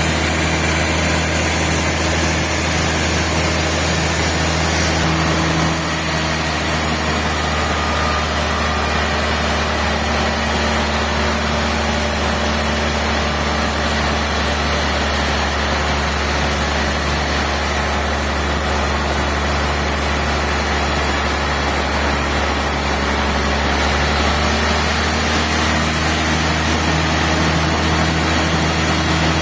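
Sawmill machinery running steadily: a low, even engine-like hum with a hiss over it that grows brighter from about six seconds in until a few seconds before the end.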